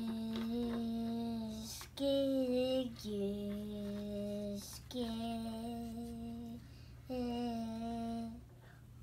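A young child's voice singing five long held notes in a slow, simple tune, each note a second or two long with short breaks between them; the third note is pitched a little lower than the rest.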